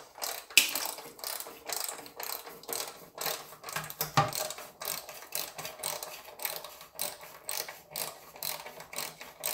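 Ratchet wrench clicking steadily as it slowly backs out the last bolt of a Corvette C3 automatic transmission oil pan, the pan hanging on that one bolt while it drains.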